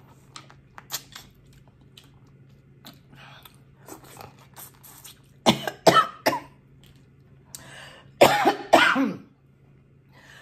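A woman coughing in two bouts, about five and eight seconds in, each of a few sharp coughs, after some faint mouth and eating clicks.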